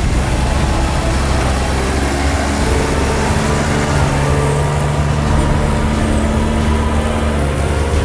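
New Holland T7050 tractor's six-cylinder diesel engine running steadily, with the rattle of its hitched tipping trailer.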